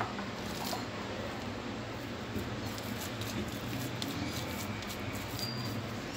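Hands kneading and shaping a soft bread dough in a glass bowl: faint squishing and light handling sounds over a steady low hum.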